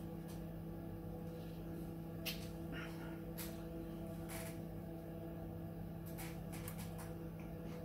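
A steady low hum, with a few faint clicks and taps as a fork scoops coleslaw from a clear plastic tub.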